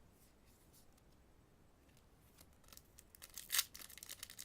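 Foil booster-pack wrapper crinkling and tearing as it is worked open, starting about halfway in, with a sharp rip a little after three and a half seconds. Before that there is only faint room tone.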